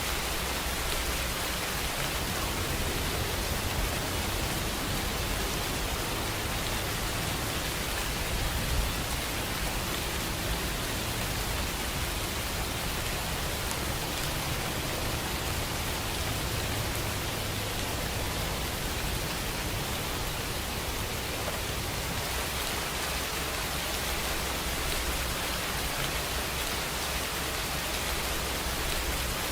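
Steady rain: an even, continuous hiss with a low rumble underneath.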